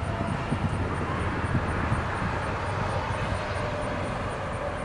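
Loaded autorack freight train rolling along the rails: a steady rumble of steel wheels on track with faint small clicks.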